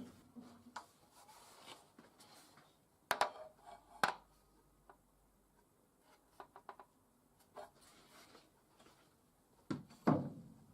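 Scattered knocks and clunks of parts and tools being handled, with two sharp knocks about three and four seconds in, a few light ticks, and the loudest pair of knocks near the end.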